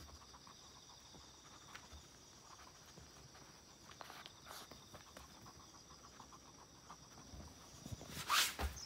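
Chihuahua sniffing and snuffling with its nose in a felt snuffle mat, hunting out hidden kibble, with faint small clicks throughout. A brief louder burst of noise comes near the end.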